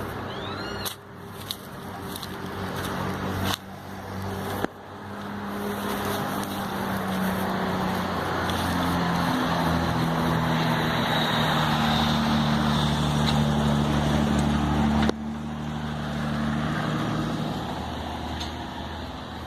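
Train running past: a low engine drone and a rolling rumble that swells to its loudest in the middle, then eases. The sound cuts abruptly several times, as if spliced.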